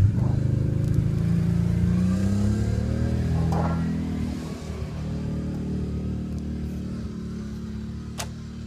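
An engine running and revving, rising in pitch over the first couple of seconds and fading after about four seconds, with a single sharp click near the end.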